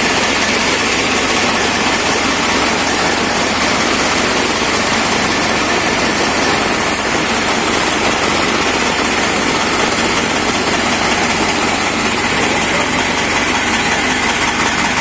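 Tractor engine running at a steady speed, driving a PTO chaff cutter whose spinning cutter rotor and blower add a loud, steady mechanical rush.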